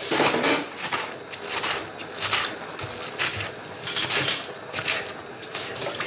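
Kitchen clatter: dishes and cutlery being handled at the counter, an irregular run of clinks and knocks.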